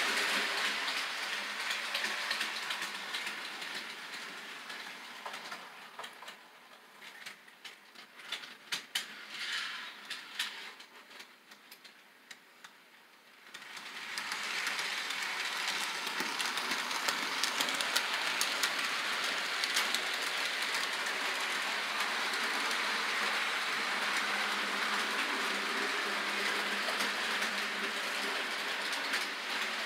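Model train running on layout track out of sight: the rumble of its wheels and motor fades away over the first several seconds, leaving a few faint clicks. About fourteen seconds in the rumble comes back abruptly and runs steadily to the end.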